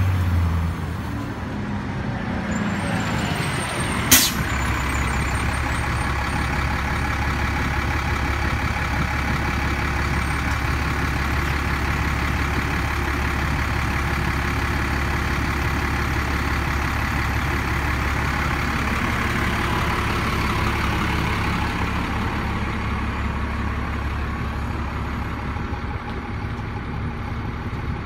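New Flyer D60LF articulated diesel bus's engine running steadily at close range, with one sharp burst from its air brakes about four seconds in.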